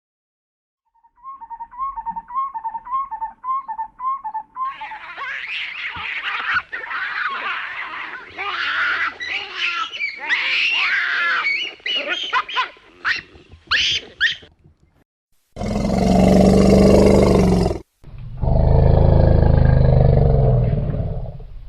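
Wild animal calls: a quick repeated chirping call, then a dense run of high, shifting cries. Near the end come two long, loud, deep roars of a big cat.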